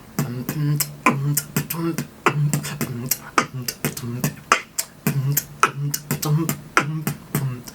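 Beatboxing: a fast vocal beat of sharp mouth-percussion kicks and snares, with short hummed bass notes between the strokes.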